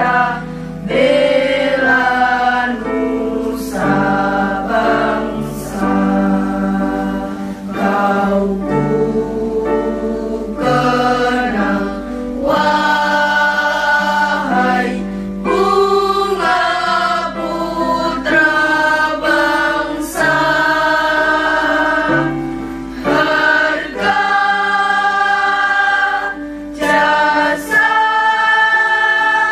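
A mixed choir of schoolgirls and schoolboys singing together into microphones, in held notes with short breaks between phrases.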